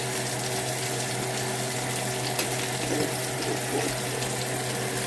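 Zucchini, squash and eggplant slices sizzling steadily in hot oil in a frying pan, with a few faint clicks, over a low steady hum.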